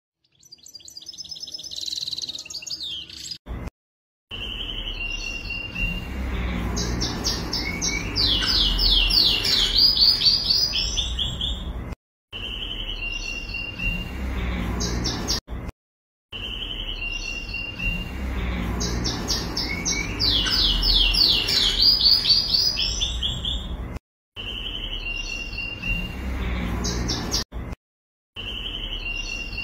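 Goldfinch twittering: bursts of rapid, high trills and chirps over a low rumble, repeating as an edited loop with sudden short silent gaps. A brief rising tonal sound plays for the first few seconds.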